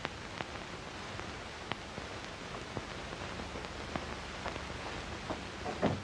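Steady hiss with scattered clicks and pops from a worn 1930s optical film soundtrack, with a brief slightly louder sound near the end.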